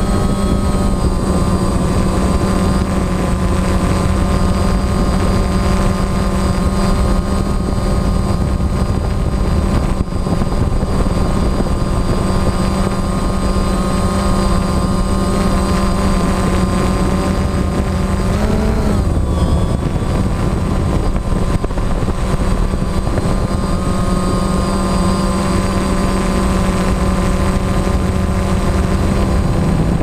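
DJI Phantom quadcopter's motors and propellers running steadily in a hover, heard loud and close from a camera mounted on the drone itself. The pitch rises briefly about nineteen seconds in as the motors speed up, then settles.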